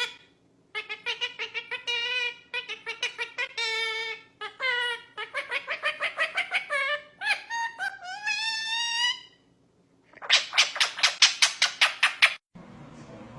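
A bird, most likely a parrot, calling in quick runs of repeated high, laugh-like notes, several a second, with a few gliding notes partway through. Near the end comes a faster run of sharp notes, then the calls stop.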